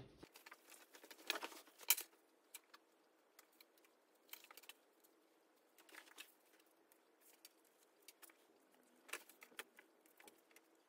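Faint, scattered rustles and light clicks of fabric, zipper tape and pins being handled and positioned at a sewing machine, with the sharpest click about two seconds in.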